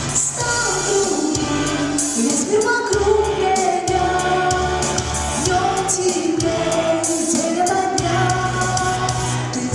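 A girl singing a pop song over a backing track, with a sung melody gliding between notes above bass and a steady drum beat.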